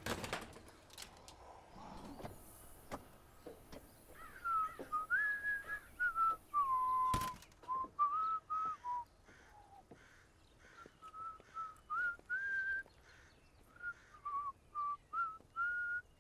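A person whistling a slow tune: a single clear pitch stepping and sliding between notes, starting about four seconds in. A sharp click cuts across it about seven seconds in.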